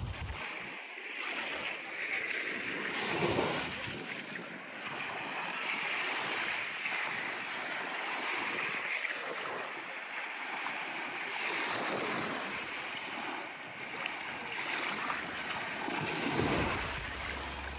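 Small waves breaking and washing up on a sandy beach, the surf swelling and fading every few seconds. Wind rumbles on the microphone near the start and again near the end.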